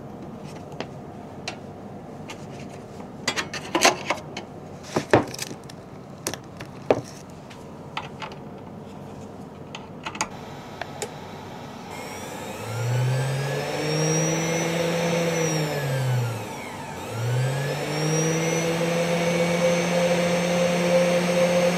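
Clicks and knocks of cables and parts being handled, then a 500 W CNC spindle motor spins up with a rising whine about halfway through, winds down and stops, then spins up again a second later and runs at a steady pitch.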